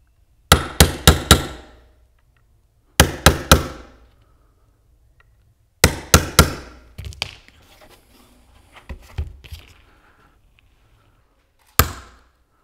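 A hammer striking a nail punch to drive nails flush into the cedar rim of a wooden beehive floor: quick groups of three or four sharp strikes with pauses between them, a few lighter knocks, and a single strike near the end.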